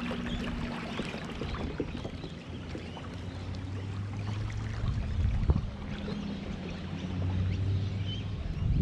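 Kayak on the water, with water lapping and sloshing around the hull and a low steady hum that comes and goes.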